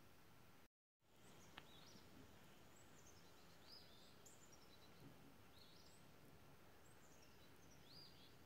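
Faint woodland ambience with a bird giving short high chirps about once a second. The sound cuts out for a moment near the start, and a single click follows.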